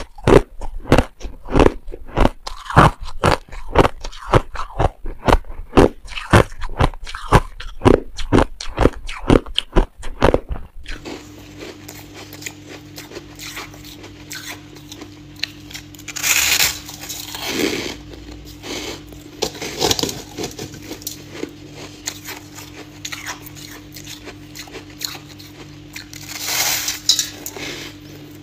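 Close-up chewing of crushed ice: rapid, loud crunches, several a second, for about the first eleven seconds. Then slower, softer crunchy bites of a fluffy, powdery chunk of ice, three clusters a few seconds apart, over a steady low hum.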